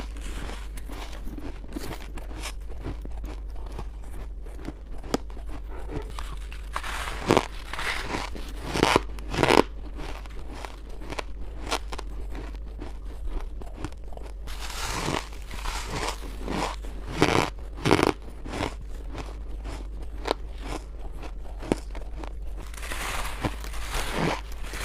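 Close-up bites and chewing of frozen freezer-frost ice, with crisp crunches coming in several clusters of a few bites each.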